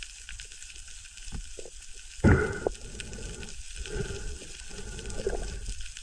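Underwater ambience heard through an action-camera housing: a low rumble of moving water with scattered sharp clicks, and a sudden loud thump about two seconds in.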